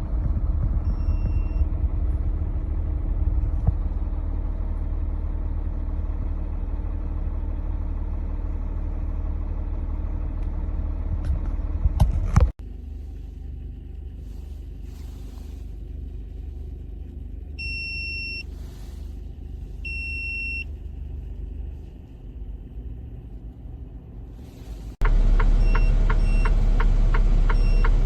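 Low rumble of road and engine noise inside a moving car for about the first half. After a sudden drop it runs quieter, with two short high electronic beeps a couple of seconds apart. Near the end it jumps to a louder steady low hum with fast, even ticking.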